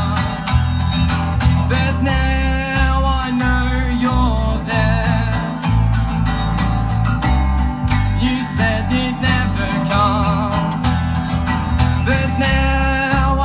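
Live band playing a country-style song, with guitar over a moving bass line and a wavering lead melody on top.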